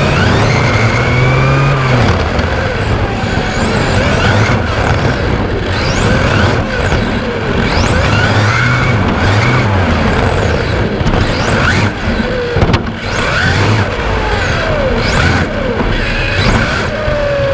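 LRP X20 4.5-turn brushless motor of a 1/10 electric touring car, heard from on board, whining in repeated rising and falling sweeps as the throttle is opened and closed around the lap. A constant rush of wind and road noise runs underneath.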